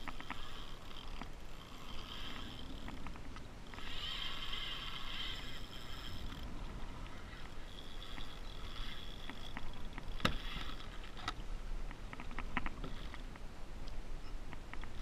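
Kayak on the water: a steady wash of water and wind noise, with short spells of a high, thin tone in the first half. A single sharp knock comes about ten seconds in, followed by a few lighter clicks.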